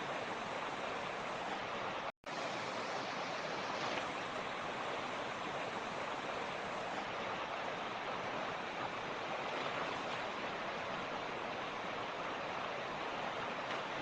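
Mountain creek rushing steadily over rocks, an even dense hiss of running water, broken once about two seconds in by a split-second cut to silence.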